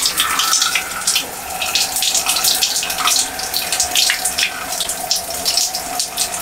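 Shower water running steadily, with many short wet crackles and squelches as hands rub flaxseed gel together and rake it through soaking-wet hair.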